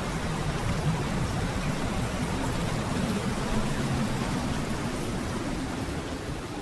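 Heavy typhoon rain falling steadily, a dense even hiss with a low rumble beneath it, starting to fade near the end.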